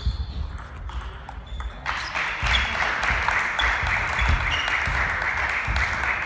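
Table tennis ball clicking off bats and table in a rally. From about two seconds in, steady clapping and applause fill the hall.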